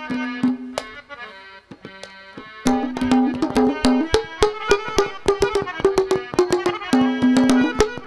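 Harmonium and hand drum playing a folk ragni instrumental interlude: a sustained reedy melody over quick drum strokes. It thins out for about a second and a half, then comes back in louder.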